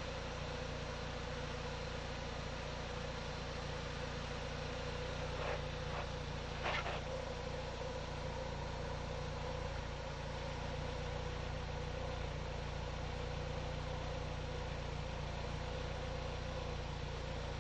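Steady low mechanical hum with a few brief clicks about six to seven seconds in, the last the loudest.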